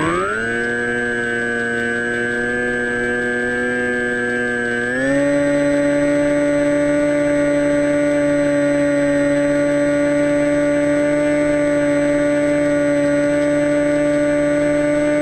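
Steady whine of an RC plane's brushless electric motor and pusher propeller at constant throttle. It settles in pitch at the start and steps up to a higher, slightly louder pitch about five seconds in, as the throttle is raised.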